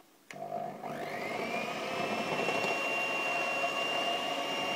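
Electric hand mixer with dough hooks switched on with a click, its motor whine rising as it spins up over about a second and then running steadily as it mixes yeast dough.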